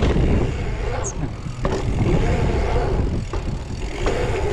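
Dirt jump bike rolling along an asphalt pump track: steady tyre rumble mixed with wind buffeting the camera microphone, and a few short knocks from the bike.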